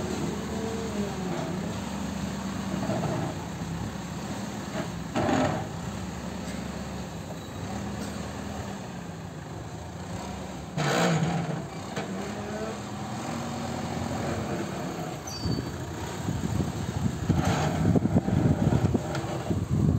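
Diesel engine of a JCB 3DX backhoe loader running, its pitch rising and falling as the machine manoeuvres. There is a brief louder burst of noise about eleven seconds in and a smaller one about five seconds in. Near the end, rough, gusty noise comes through over the engine.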